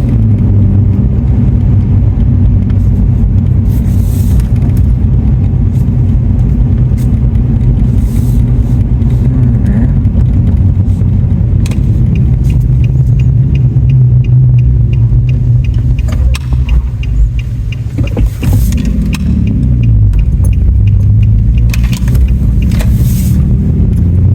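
Pickup truck running, heard from inside the cab: a loud, steady low rumble of engine and road noise, with a run of fast, even light ticks midway.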